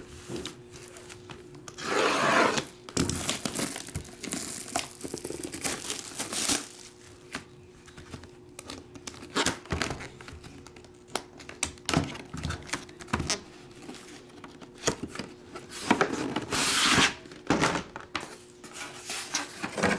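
Plastic shrink wrap being torn and crinkled off a sealed trading-card box, in two loud rips about two seconds in and near the end. Between them come scattered scrapes and knocks of the cardboard box and a hard plastic card holder being handled.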